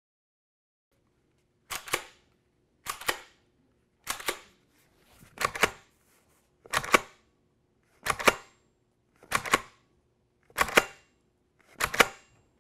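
Hatsan Vectis lever-action PCP air rifle being fired and cycled in quick succession. Nine sharp pops about 1.3 seconds apart, each with a quick double crack, starting about a second and a half in.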